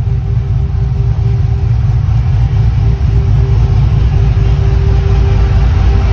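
Car engine idling steadily with a deep exhaust note, run after sitting unused for a while.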